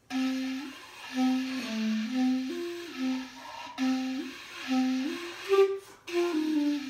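Clarinet playing a short tune of separate notes that step up and down, with two brief breaks between phrases.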